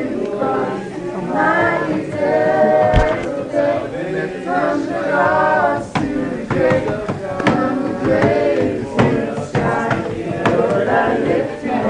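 Several groups of people singing worship songs at the same time, many voices overlapping, with hand claps through the singing.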